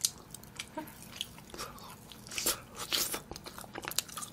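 Close-miked chewing of braised chicken and glass noodles: irregular wet mouth smacks and clicks, a few louder ones near the middle.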